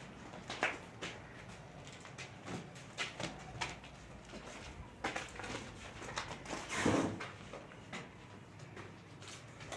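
Irregular footsteps and scuffs of someone walking on a dusty earth floor, with handling noise from a handheld camera; one longer, louder scraping rustle about seven seconds in.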